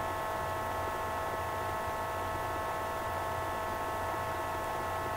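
Steady background electrical hum: a low hum under a cluster of faint, constant high whining tones, unchanging throughout with no other events.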